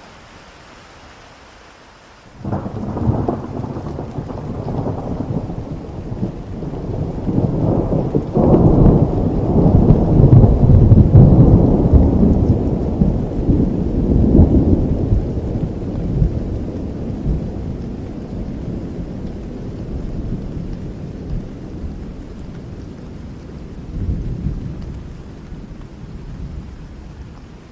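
Thunder rolling over steady rain: a low rumble breaks in about two and a half seconds in, builds to its loudest around the middle, then rumbles away, with a smaller swell near the end.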